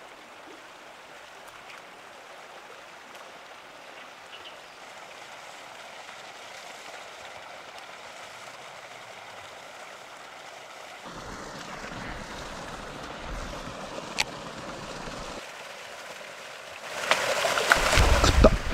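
Steady light gurgling of a topwater catfish lure being worked across the surface of a canal, then a catfish strikes it with a loud burst of splashing near the end.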